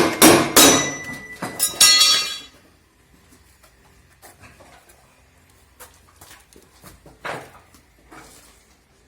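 Hammer blows on a Drean washing machine's drum shaft, driving it out of the tub's bearings, each strike ringing metallically; about five strikes in the first two and a half seconds. Then only faint knocks and clicks of parts being handled, one a little louder about seven seconds in.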